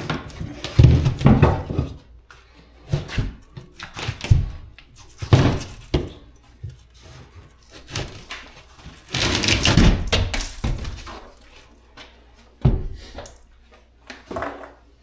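Old drywall being knocked and torn off the wall during demolition: irregular thuds and cracks, with a longer crash of breaking and falling pieces about nine seconds in.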